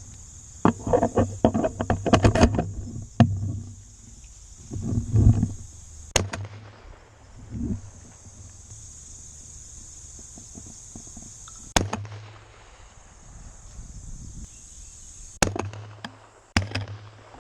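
Shotgun cracks in a dove field, the clearest single reports coming about six, twelve and fifteen seconds in. A quick flurry of knocks and rustling comes near the start.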